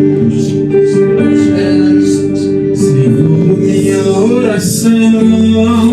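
Worship band playing the instrumental lead-in to a song: guitar with sustained held notes over a regular light beat, and a voice sliding in about four seconds in.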